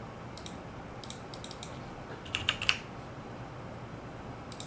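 Computer keyboard keystrokes in short scattered groups, as values are typed into a form; the loudest cluster comes about halfway through.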